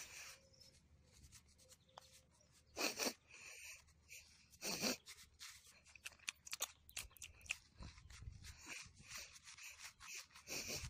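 Snow crunching and rustling as a plastic toy badger is pushed nose-first through it by hand: a string of faint crackles with a few short, louder noisy bursts.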